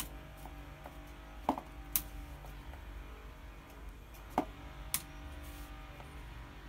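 Stiletto heels stepping on and piercing small milk cartons on a tile floor: five sharp clicks and knocks, mostly in pairs about half a second apart, over a faint steady hum.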